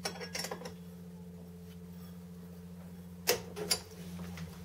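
A steady low electrical hum with a few sharp clicks: a short cluster right at the start and two more about half a second apart a little past three seconds in.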